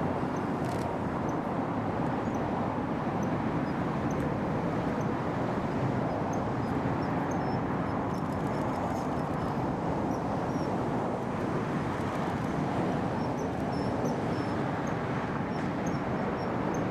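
Steady rushing outdoor background noise, with faint, very short high-pitched bird peeps scattered throughout.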